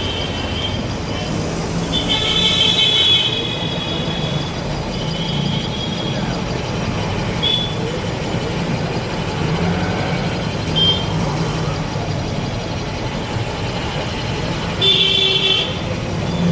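Cylinder boring machine cutting an air compressor's bore: a steady low motor hum with high-pitched squeals from the cutting tool, loudest about two seconds in and again near the end.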